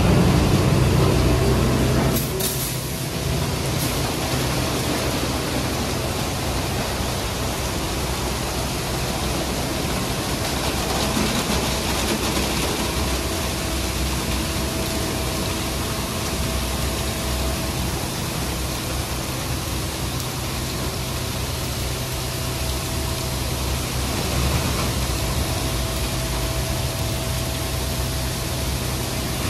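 A nu-star Soft Touch Plus hydraulic-drive friction rollover car wash running: a steady rushing noise with a low hum. It is louder for about the first two seconds, then settles a little quieter.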